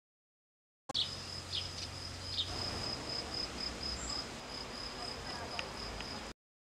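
Outdoor ambience of an insect chirping: a steady high-pitched trill broken into short, even pulses, over a low rumble, with a few faint clicks. It cuts in about a second in and cuts off suddenly near the end.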